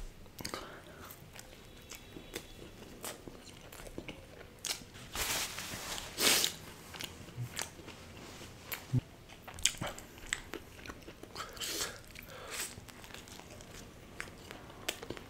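Close-miked eating: a person biting into and chewing cheese-burst pizza topped with paneer and dipped in makhani gravy. Irregular crunches and wet mouth clicks, with one longer, louder crunching stretch a little before the middle.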